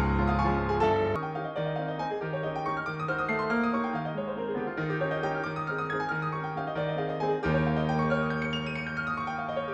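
Background piano music: a steady flow of notes over held bass notes.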